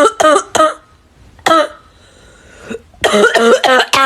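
A person acting out coughs in short, voiced bursts: three quick coughs at the start, a single cough about a second and a half in, then a run of several coughs near the end.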